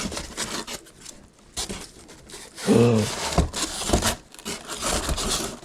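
Styrofoam packing and cardboard being handled and pulled from a shipping box: irregular scraping and rustling, with two dull knocks about three and a half and four seconds in.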